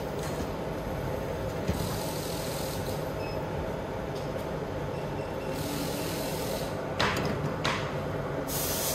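A circuit board being taken apart with tools: a couple of sharp clicks and a few short bursts of hiss over a steady background hum.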